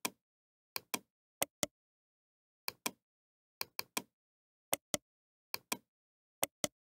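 Computer mouse button clicking in quick pairs, about once a second, eight times, with dead silence between the clicks.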